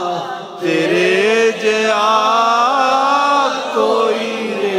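A man's voice sings a Punjabi naat, drawing out long, wavering, ornamented notes with no instruments. There is a short breath about half a second in and another pause about three and a half seconds in.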